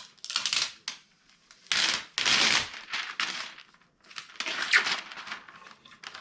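Packing foam and packaging rustling and scraping in several irregular bursts as the 3D printer's heated bed is worked loose and lifted out of its box. The loudest burst comes about two seconds in.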